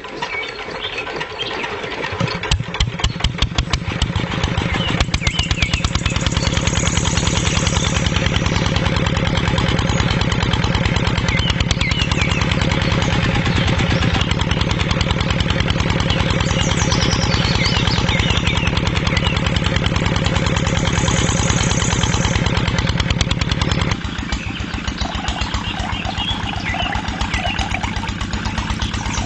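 Small engine starting up about two seconds in, its firing beat quickening, then running steadily; near the end it drops to a quieter, softer running sound.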